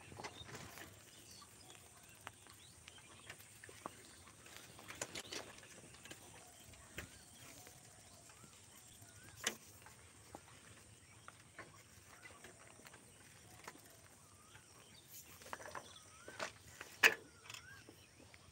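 Bicycle ridden along a bumpy dirt road, faintly rattling with scattered sharp knocks, one about halfway and the loudest near the end. Birds chirp faintly near the end.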